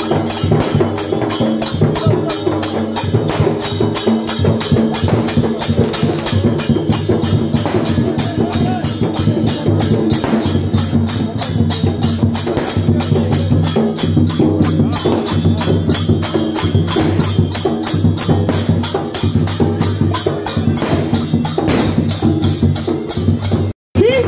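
Danda Nacha drumming on large painted barrel drums, beaten in a fast, steady rhythm of about four beats a second with a bright clatter on each beat. The sound drops out for a moment near the end.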